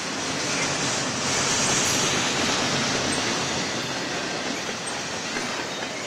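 Double-stack intermodal well cars loaded with shipping containers rolling past: steady rumble and rattle of steel wheels on the rails, a little louder about a second or two in.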